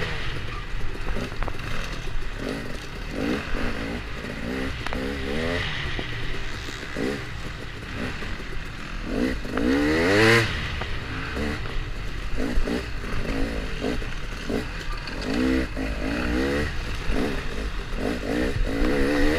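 Dirt bike engine being ridden hard, revving up and falling back over and over with the throttle, loudest about ten seconds in.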